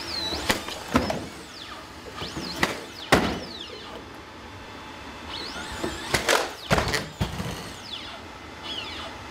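Atlas humanoid robot's hydraulic actuators whining, sweeping up and down in pitch as it moves. Several thuds of its feet striking the boxes as it jumps up onto and across them, the sharpest about three seconds in.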